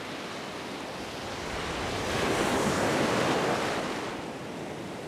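Ocean surf breaking and washing up the beach, swelling to a peak in the middle and then fading again, with wind buffeting the microphone.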